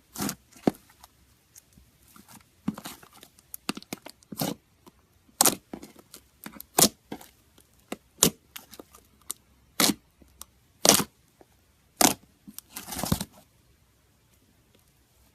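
Slime being squeezed and poked by hand, giving irregular sharp pops and clicks about once a second, with a longer crackling stretch near the end.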